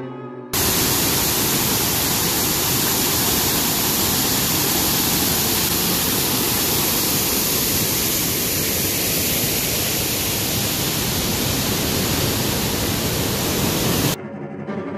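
Waterfall rushing: a steady, even rush of falling water that cuts in sharply about half a second in and cuts off abruptly near the end.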